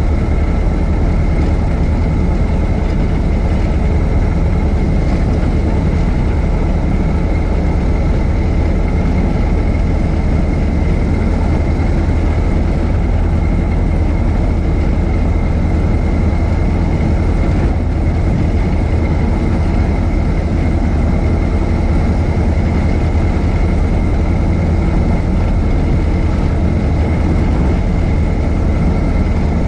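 1926 Ford Model T's four-cylinder engine running steadily as the car is driven: an even low rumble with a faint steady high whine above it.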